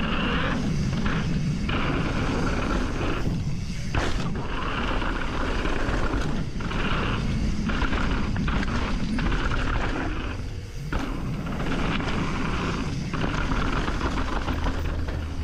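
Mountain bike riding down a dirt trail, heard through an action camera's microphone: steady wind buffeting and rumbling tyre and frame noise, with a few brief dips in the hiss.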